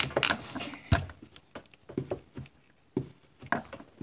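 Hands handling a paper tissue on a tabletop: a string of irregular light knocks and rustles, the sharpest about a second in.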